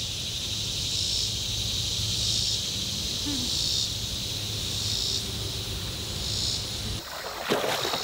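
A summer insect chorus that swells and fades about once a second over a low steady rumble. Near the end it cuts off and water splashes as a German shepherd wades through a creek.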